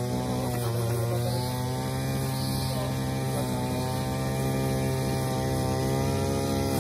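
A steady low hum with many overtones, unchanging throughout.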